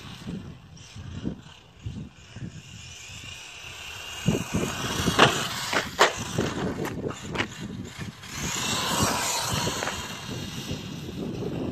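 Traxxas Slash 4x4 RC truck driving on asphalt: its electric motor whines up and down with the throttle over tyre noise, louder again about eight seconds in. A few sharp knocks come about five to seven seconds in.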